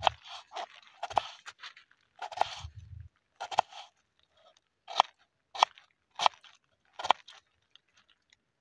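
Kitchen knife dicing a peeled raw potato on a wooden cutting board: crunching cuts through the potato, then a run of sharp knocks of the blade on the board, about one every two-thirds of a second.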